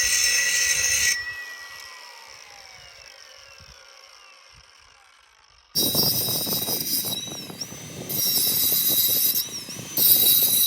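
Milwaukee M18 FUEL brushless cordless angle grinder running with a steady high whine, shut off about a second in and winding down with a falling pitch. Around six seconds in it starts again and grinds with loud scraping noise, its pitch dipping briefly under load a couple of times.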